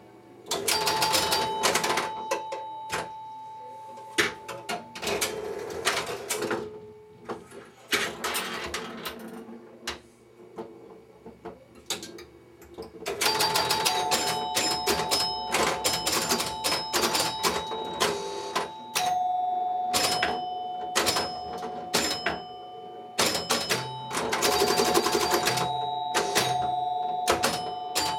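1972 Bally Little Joe electromechanical pinball machine in play: rapid clicking and clattering from its switches, relays and scoring mechanism comes in bursts, with a lull near the middle. Its retrofitted chimes, two door chimes and a bell, ring with the scoring, their tones held for several seconds at a time.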